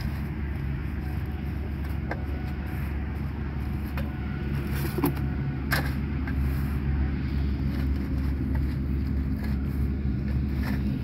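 Steady low hum of a running engine, with a few light clicks and taps over it.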